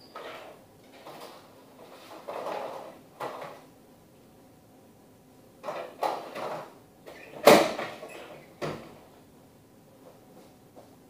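Rummaging in a kitchen wall cupboard: plastic food containers and lids clattering and the cupboard door knocking, a series of separate knocks with the loudest about two-thirds of the way through.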